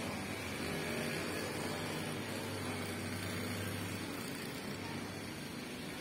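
Steady outdoor ambient noise: an even hiss over a low hum, with no distinct events.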